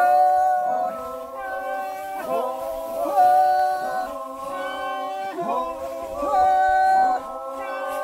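Unaccompanied group singing, a threshing work chant by several voices: long held notes in phrases of about a second or two, joined by short swooping glides.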